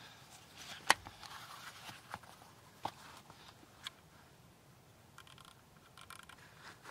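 A hunting rifle being handled and readied on a rest: one sharp click about a second in, then a few lighter clicks and faint rustling.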